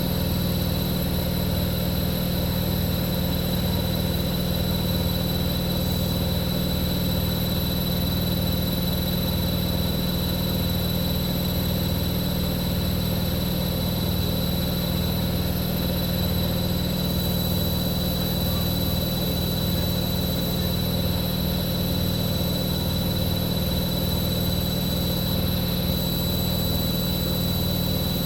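Continental Edison washing machine on its 1200 rpm spin cycle, the drum spinning at a steady speed: an even motor hum and whine with no rise or fall in pitch and a faint regular pulse underneath.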